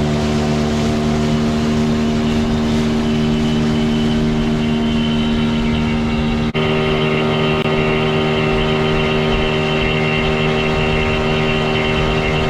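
Outboard motor running steadily at cruising speed. About halfway through there is a split-second break, after which the pitch is slightly different.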